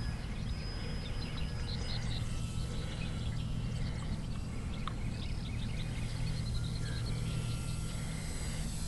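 Outdoor field ambience: birds chirping in short repeated high notes over a steady low rumble.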